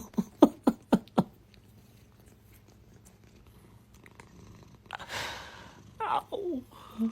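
Domestic cat purring, with a quick run of about five short calls in the first second, a short noisy rush about five seconds in, and a falling meow about six seconds in.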